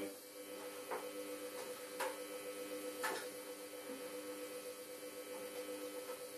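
Samsung WF1702NHWG front-loading washing machine humming steadily near the end of its wash program, with a sharp tick about once a second over the first three seconds.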